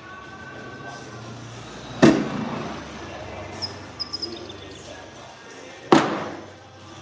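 Two cornhole bags land one after another on the wooden cornhole board, about two and six seconds in. Each lands as a sharp thud that fades within about half a second.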